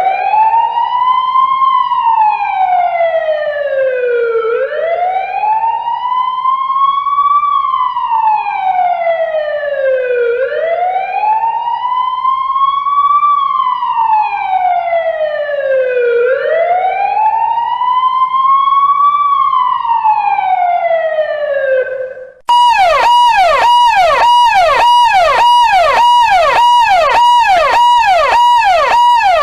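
Emergency-vehicle siren sounding a slow wail: each cycle rises quickly and falls more slowly, about once every six seconds. About 22 seconds in, it breaks briefly and switches to a fast yelp that repeats a few times a second.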